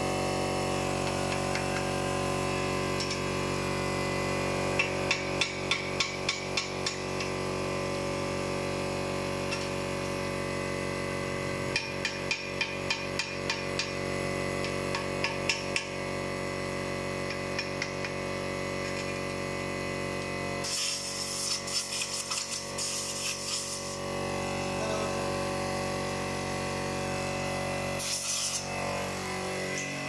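Runs of quick hammer blows, about three or four a second, in spells of a second or two, over a steady background hum. Later comes a few seconds of harsh, high hissing noise broken by rapid ticks.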